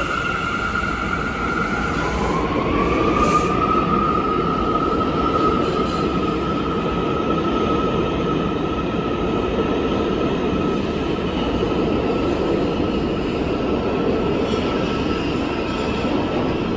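R179 subway train running, a steady rumble of wheels on rail under a high, steady tone that drops and climbs back up about two seconds in.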